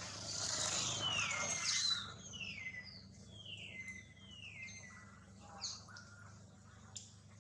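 High wildlife calling. A hissing rasp is loudest in the first two seconds, then about five whistled notes follow in a row, each sliding down from high and settling on the same pitch. A faint steady low hum runs underneath, and a short click comes near the end.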